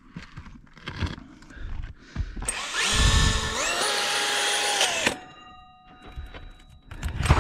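Power drill fitted with a hole saw, run in one burst of about two and a half seconds starting about two and a half seconds in. Its whine climbs in pitch, then falls as the trigger is released and it winds down. Light knocks and handling sounds come before it and again near the end.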